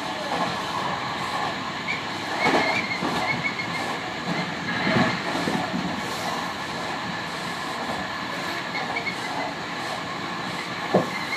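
Tobu 50000 series electric train running between stations, heard from on board: a steady running rumble with a faint steady whine. There is wheel squeal a couple of seconds in and again near the end, plus knocks from the wheels over the rails, the sharpest just before the end.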